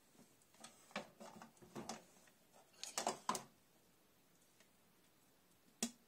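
Plastic dishes and the wire rack of an open tabletop dishwasher being handled: a few light knocks and rattles, the strongest about three seconds in, and a single sharp click near the end.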